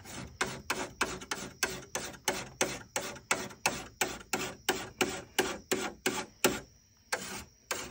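A hand file rasping along the steel edge of a brush hook (foice) blade as it is sharpened, in brisk, even strokes about three a second, with a short pause near the end before a couple more strokes.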